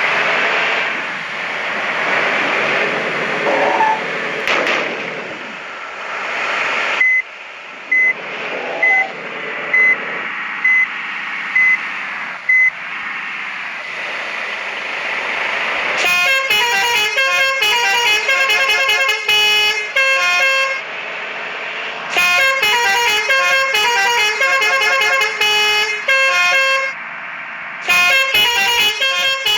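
Bus telolet horn, a multi-tone musical air horn, playing fast tune-like sequences of notes in several loud bursts from about halfway through, with short breaks between them. Before it, a steady rushing noise and then a string of short, evenly spaced high beeps.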